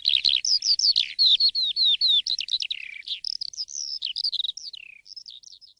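Asian pied starling (jalak suren) in full song: a fast run of whistled notes, most sliding down in pitch, loud at first, then quieter over the last couple of seconds before stopping.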